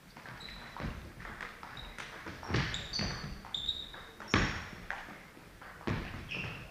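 Table tennis players moving between points on a wooden sports hall floor: scattered taps and thuds, three louder thumps, and short high squeaks of sports shoes, echoing in the hall.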